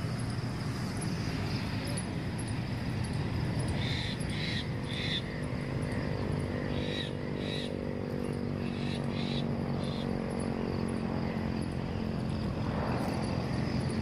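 Open-country ambience: a steady insect chirring over a low rumble. Short bird calls come in twos and threes from about four seconds in. A steady low drone joins about five seconds in and fades near the end.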